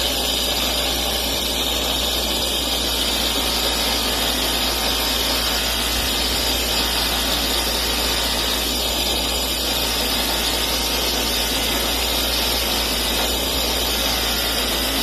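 Electric buffing wheel running steadily, with a tobacco pipe stem held against it to polish off brown discolouration.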